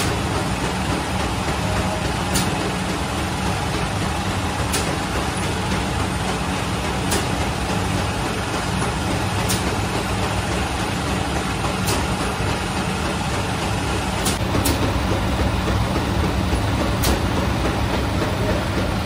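Automatic flatbread oven machine running with a steady low hum and noise, with a short sharp click about every two and a half seconds.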